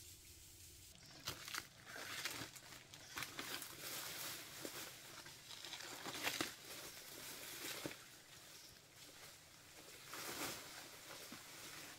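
Irregular rustling and crinkling, with scattered sharp clicks and snaps, busiest in the first half and again near the end.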